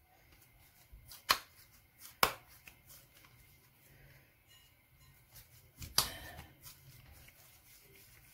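Kitchen handling sounds while dough is worked on the counter: three sharp knocks, about a second in, a second later and about six seconds in, with light rustling and small ticks between.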